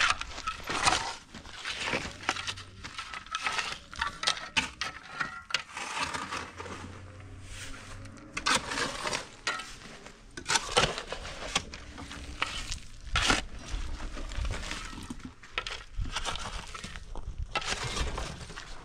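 Metal shovel scraping and digging into stony dirt and gravel in irregular strokes, with small stones rattling and clinking as they are scooped and tipped.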